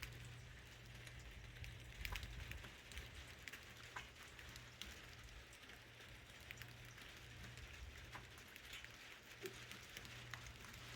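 Light rain falling, a soft steady hiss with scattered individual drops ticking irregularly, over a faint low steady hum.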